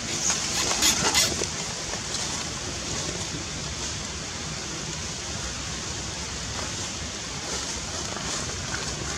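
Steady rushing background noise, with a few short clicks or rustles in the first second or so.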